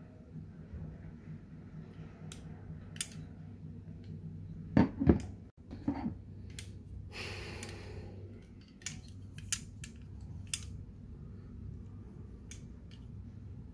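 Small clicks and knocks of a CO2 BB pistol's stripped frame and parts being handled and set down on a table, with two loud knocks about five seconds in and a brief scraping noise around seven seconds, over a steady low hum.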